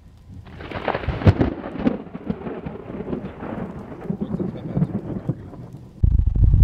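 A long peal of thunder from a tornadic storm. It swells with crackles about half a second in, peaks a moment later, and rolls away over about five seconds. Near the end it cuts abruptly to loud road and wind noise inside a moving car.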